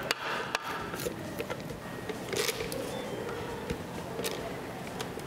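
Spatula scraping and knocking against a stainless-steel Thermomix mixing bowl while thick cream cheese filling is scraped out into a bag-lined jug: a few short knocks and scrapes spread across a few seconds.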